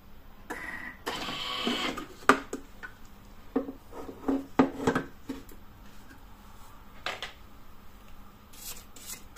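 Thermomix TM6 food processor being opened after mixing: a short mechanical whir about a second in as the lid unlocks, then a series of sharp clicks and knocks as the lid is lifted off and handled.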